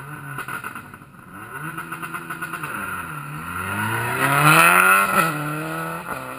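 Rally car on a gravel stage: the engine revs drop as it slows for the corner, then climb steeply under hard acceleration as it passes, loudest about four to five seconds in with gravel spraying. Near the end the revs cut sharply twice as it shifts up and pulls away.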